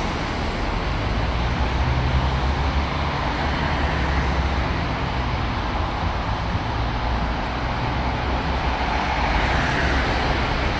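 Stationary double-decker bus idling: a steady low engine rumble under an even hiss.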